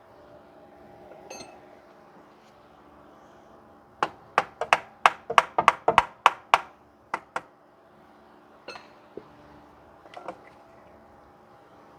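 A hammer striking a stuck starter motor to knock it loose: a quick run of about a dozen sharp metallic strikes over three and a half seconds, followed by a few softer knocks.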